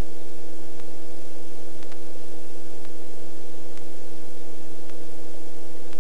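Small helicopter's engine and rotors running steadily in low-level flight, heard inside the cabin as an even drone of several tones over a hiss, with faint ticks about once a second.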